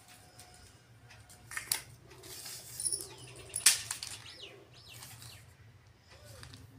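Cotton fabric being folded and smoothed by hand on a floor, with a few sharp rustles and a tape measure being laid out. A bird calls a few times in the background.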